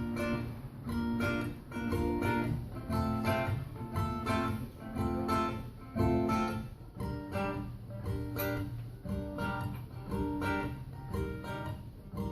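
Ukulele strummed in a steady, even rhythm, chords changing regularly: the instrumental intro of a song, with no singing yet.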